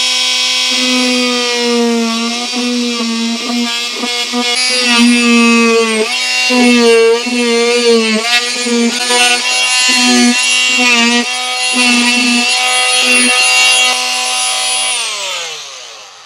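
Corded oscillating multi-tool cutting a square hole in a plastic water butt lid: a steady high-pitched buzz that sags and wavers in pitch as the blade bites into the plastic. Near the end it winds down with a falling pitch.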